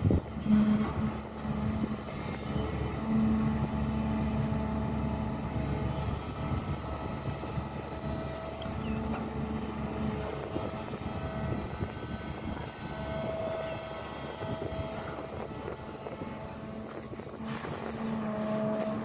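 SANY crawler excavator's diesel engine running under digging load, a steady drone with pitched hums that swell and ease every few seconds as the boom lifts and the upper body swings.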